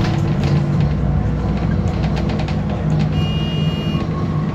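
Alexander Dennis Enviro 400 double-decker bus's diesel engine running while the bus is under way, a steady low drone with rattles from the body. A brief high-pitched ringing tone sounds about three seconds in.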